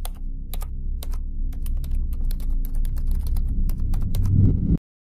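Computer keyboard typing: separate key clicks at first, then a fast run of keystrokes, over a steady low drone. The drone swells near the end and cuts off suddenly.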